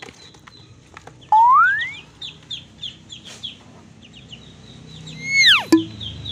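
Ducklings peeping: a quick run of short, high peeps, with a louder rising call just over a second in and a loud arching call about five seconds in.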